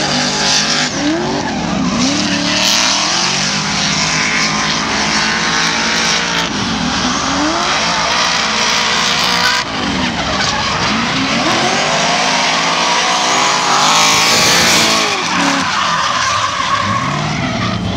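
Two drift cars sliding in tandem: their engines rev up and down again and again over a constant hiss of tyres skidding and squealing on the asphalt.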